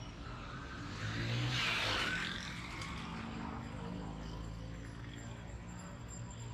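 Street traffic: auto-rickshaw, motorcycle and small-car engines running as they pass close by. The noise swells about a second in as one vehicle goes past, then settles to a steady low engine hum.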